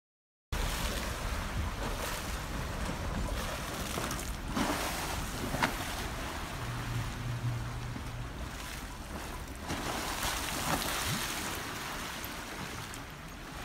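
Swimming pool water sloshing and slapping in waves set off by earthquake shaking. It starts about half a second in and runs on as a steady rushing wash, with a few sharp clicks.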